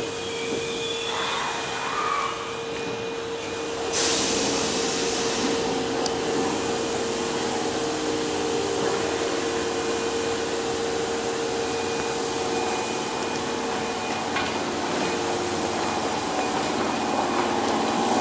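Osaka subway 21 series train standing at the platform with a steady hum from its equipment. About four seconds in, a sudden hiss of air starts and goes on as a steady rushing noise; the hum fades out later on.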